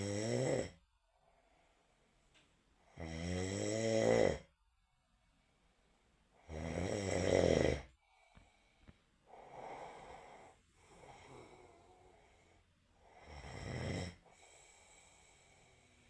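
Loud snoring: snores of a second or so each, about every three and a half seconds. Partway through they give way to a few softer breaths, then one more snore about two-thirds of the way in.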